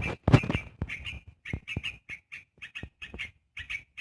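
Small bird giving short harsh calls, repeated a few times a second, with a louder rustling patch at the start.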